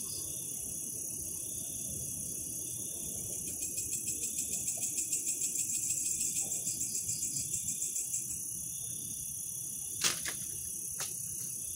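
Night insect chorus, a steady high-pitched shrilling, with a louder pulsing trill of several pulses a second through the middle. About ten seconds in comes a sharp knock, the loudest sound, and a fainter one a second later.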